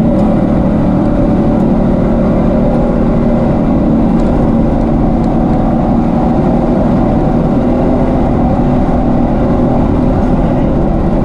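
Toyota Tacoma rally truck's engine running hard at fairly steady revs, heard from inside the cab, mixed with a constant rumble of tyre and road noise on a dirt track.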